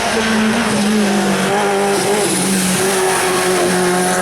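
Race car engine running hard up a hill-climb course, its pitch dipping a few times and climbing again near the end.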